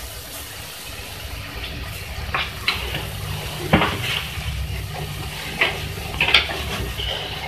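Scattered light clinks and scrapes of kitchen utensils against a metal cooking pot, over a low steady rumble that grows louder about three seconds in.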